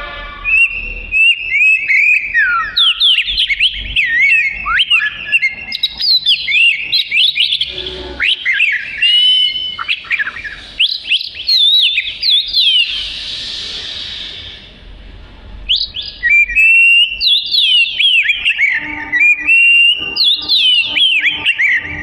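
Oriental magpie-robin (kacer) singing hard: a fast, unbroken run of varied whistled notes that sweep up and down, with a short lull about two-thirds of the way through before the song starts again.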